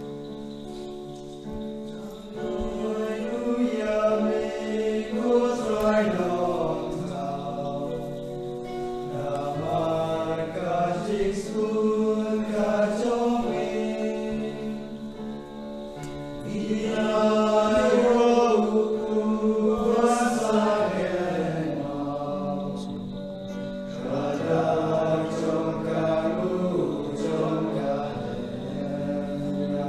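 A hymn sung in Khasi with keyboard accompaniment. The keyboard holds steady chords at first, and the voices come in about two seconds in and carry the melody.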